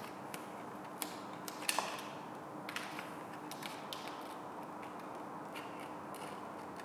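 Vinyl caliper wrap film crackling and ticking as it is handled and trimmed with a craft knife around a brake caliper: scattered small crackles, most of them in a cluster a little under two seconds in, over a faint steady hum.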